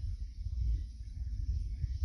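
Wind buffeting the microphone outdoors: an uneven, gusting low rumble.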